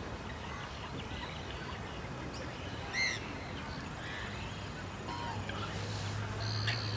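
Small birds calling in the background: scattered short chirps, with one clear arched call about three seconds in and a thin high call near the end. A low steady hum grows louder over the last couple of seconds.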